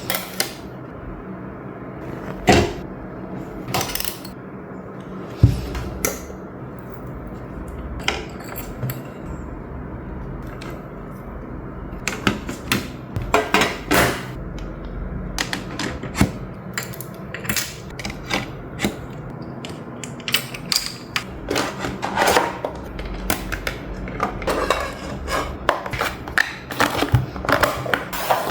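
Small objects being handled and set down on a desk while it is tidied: irregular clicks, taps and knocks, sparse at first and coming thick and fast from about halfway through.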